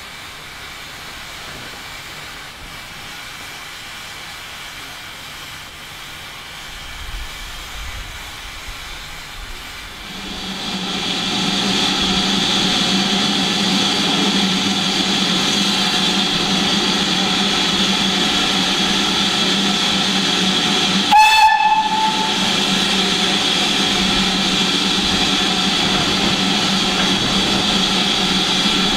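Steam locomotive standing in a station letting off steam: a quiet hiss for the first third, then a loud, steady hiss that builds up over a couple of seconds and holds. About two-thirds of the way in there is one short whistle toot.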